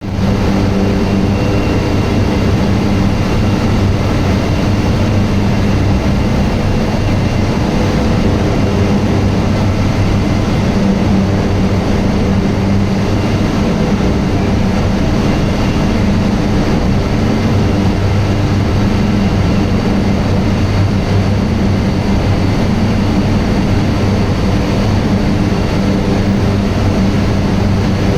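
Sugar mill's cane-crushing machinery running: a loud, steady industrial drone with a low hum.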